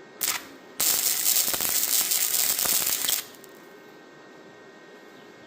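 Wire-feed welder arc crackling as a tack weld is redone: a brief burst just after the start, then a steady crackle for about two and a half seconds that stops abruptly.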